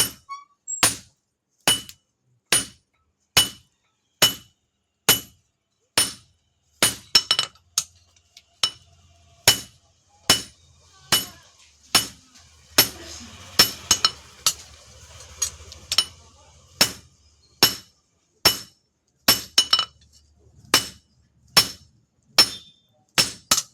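Hand hammer striking steel on an anvil in a steady rhythm, about one ringing blow a second, now and then a quick double blow: the steel being forged out into a knife blade.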